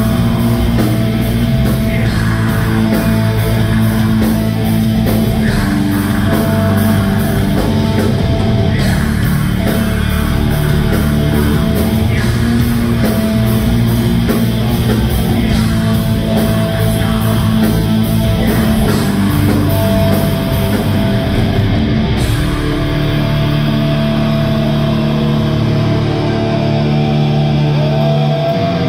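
Heavy metal band playing live and loud: distorted electric guitars and bass holding sustained notes over steady, fast drumming.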